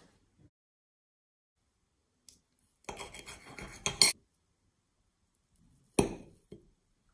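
Kitchen utensils clinking and scraping against dishware for about a second, ending in a louder clack, then one sharp knock about six seconds in with a lighter one just after.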